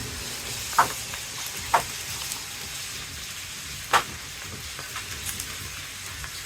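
Steady hiss, like rain or rushing water, with three brief, sharp sounds: about a second in, near two seconds, and about four seconds in.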